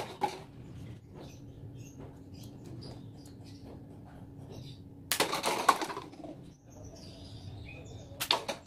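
A homemade paper toy pistol shooting, with sharp snaps at the start and near the end, and light paper cups knocked off a stack clattering for under a second about five seconds in.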